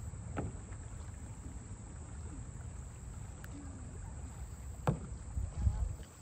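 Steady low wind rumble on the microphone, with a sharp click about half a second in, a louder click about five seconds in, and a couple of light knocks just after it.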